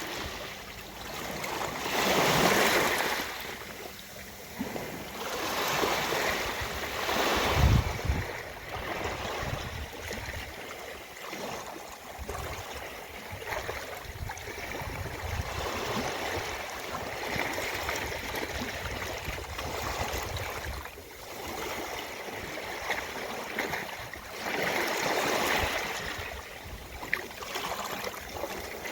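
Ocean waves washing onto a beach: a continuous hiss of surf that swells into louder surges as waves break, the strongest about two seconds in, around seven seconds in and again near the end.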